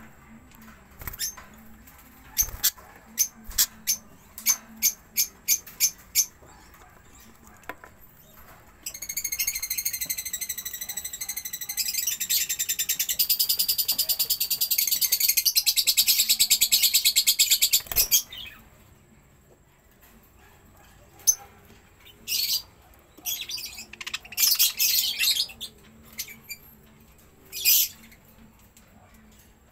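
Pet budgerigars calling: a run of short sharp chirps, then one long, loud, rapidly pulsing chatter lasting about nine seconds, then scattered chirps again near the end.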